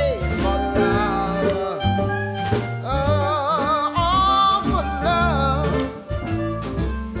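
Background music: a song with a singing voice over bass and drums.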